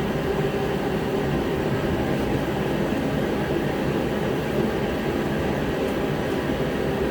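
Steady drone of a running heater, even and unbroken.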